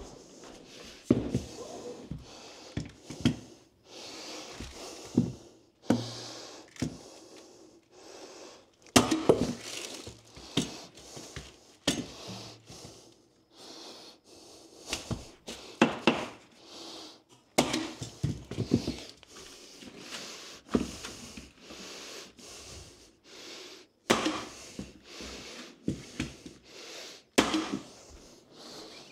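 Irregular knocks, thuds and clatter of hardwood floor boards being laid and worked into place, with several sharp bangs spread through.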